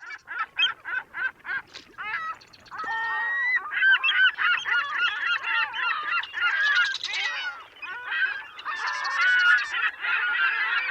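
A flock of geese honking: a string of single calls at first, then many birds calling over one another from a couple of seconds in.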